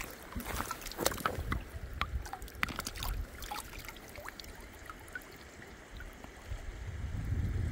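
Shallow river water running and trickling over stones, with sharp clicks and knocks of stones or handling through the first few seconds and a low rumble rising near the end.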